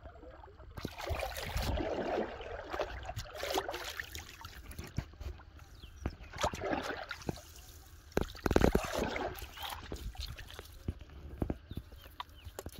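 Hooked carp splashing and thrashing in shallow pond water as it is pulled to the bank, in irregular bursts of splashing. A chicken clucks at intervals.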